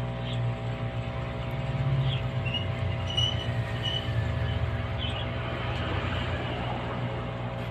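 A steady mechanical hum over a wavering low rumble, with a few short high chirps about two to four seconds in.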